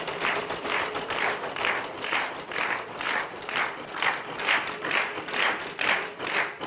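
Game-show prize wheel spinning and coasting down, its pointer clicking against the pegs. The clicks start fast and slow steadily to about two a second as the wheel loses speed.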